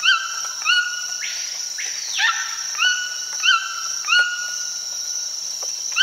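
White-throated toucan calling: a series of high-pitched yelping calls, each a quick upward flick into a held note, repeated about every two-thirds of a second. A steady high whine runs underneath, with a brief hiss about a second in.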